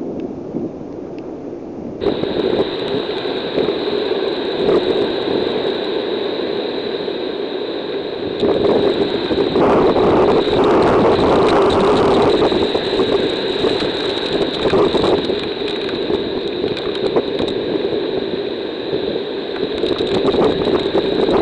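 Hurricane wind and heavy rain battering a trail camera: a loud, steady roar with many small ticks of raindrops, over a thin steady high whine. It grows louder about two seconds in.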